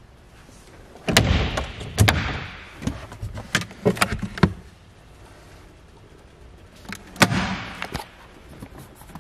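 Hinged storage door and lid on a boat's passenger console being handled: two sharp knocks about a second and two seconds in, a run of lighter clicks and clatter, then another sharp knock about seven seconds in.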